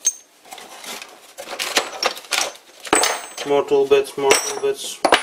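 Loose steel lathe tool bits clinking against one another as they are set down on a wooden workbench: a string of short, sharp metallic clicks, busier in the second half.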